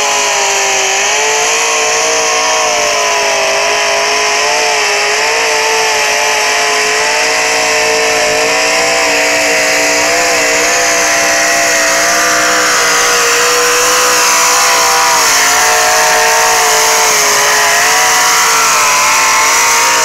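Truck-pull puller's engine running loud at high revs as it drags a weight-transfer sled down the dirt track, held near one pitch that wavers a little.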